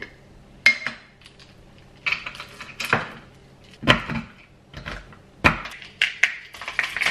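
A knife chopping chocolate discs on a wooden cutting board, with sharp knocks about a second apart. Near the end comes a denser clatter as chocolate discs are tipped from a glass jar into a mixing bowl.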